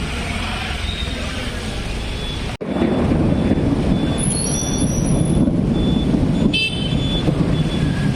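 Rain and wind noise mixed with road traffic. It cuts off sharply about two and a half seconds in and comes back louder. A brief vehicle horn toot sounds near the end.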